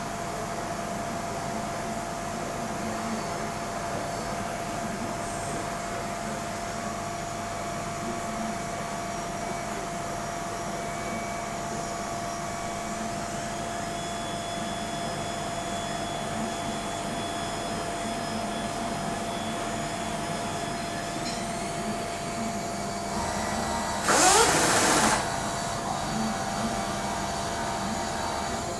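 Deckel Maho DMC 60 U machining centre cutting under flood coolant: a steady spindle whine over the hiss of coolant spray, with faint higher tones gliding up now and then. About 24 seconds in, a loud rush of noise with a sweeping pitch lasts about a second.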